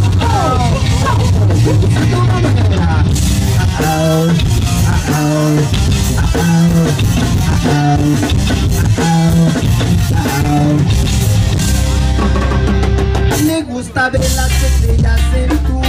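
Live rock band playing: electric guitar, bass guitar and drum kit, with a short drop in the music about fourteen seconds in.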